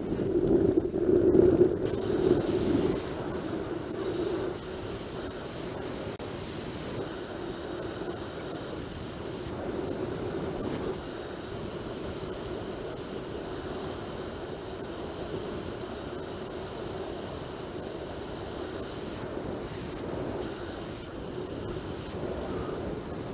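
Wind rushing over the microphone of a camera worn by a paraglider pilot in flight, a steady hiss that is gustier and louder for the first few seconds.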